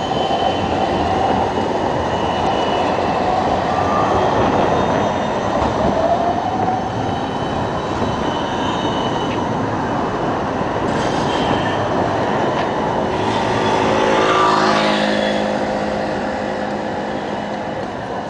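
Siemens Combino articulated tram rolling past on street rails, with short squeals from its wheels on the curved track. A whine with several pitches swells and fades in the last few seconds as it goes by.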